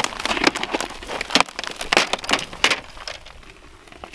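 Insulation and plastic lining inside a Boeing 737 emergency exit door crackling and crinkling as they are pulled and torn by hand: a rapid, irregular run of snaps and rustles that thins out near the end.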